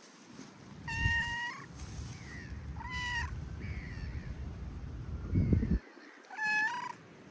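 A stray cat meowing three times, a few seconds apart, with fainter, higher calls in between. Wind rumble on the microphone, with a brief louder low gust about five seconds in.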